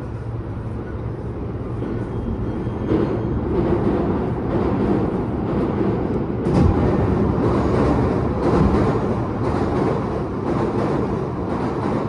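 Running noise of a commuter electric train heard from inside the car: a steady rumble of wheels on rails that grows louder about three seconds in, with a few short knocks.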